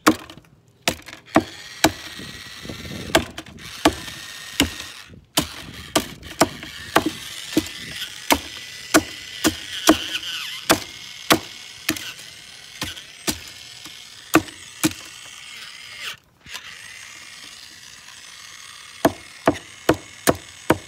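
Repeated sharp hammer knocks, about one to two a second, with a short pause late on and quicker blows near the end, typical of toy cars being smashed with a hammer. A faint steady whine runs underneath through most of it.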